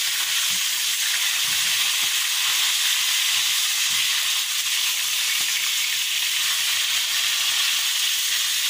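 Whole tilapia frying in hot oil in a steel wok, a steady sizzle, while a metal spatula turns the fish.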